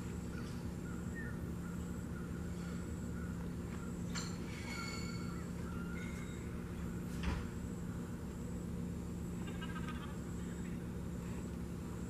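Outdoor ambience: a steady low hum with faint, scattered bird chirps, and a single sharp knock about seven seconds in.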